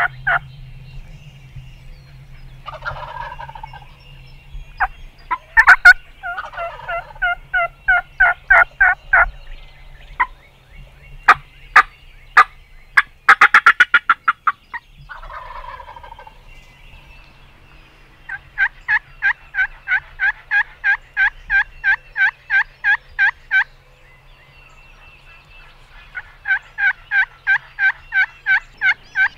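Wild turkey calling: long runs of evenly spaced yelps, about three a second, with gobbling in the first half and a few sharp clicks.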